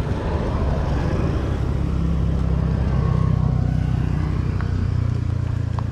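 A road vehicle's engine running as it goes past, a steady low rumble that swells a couple of seconds in and is loudest around the middle.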